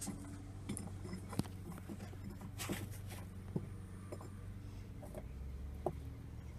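Small glazed ceramic pots being set down on the brick floor of an electric kiln among clay stilts: several light knocks and clicks of fired clay on the kiln floor, over a steady low hum.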